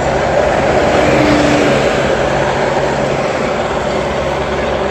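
Helicopter circling low overhead, its rotor and engine making a loud, steady noise that drowns out the crowd.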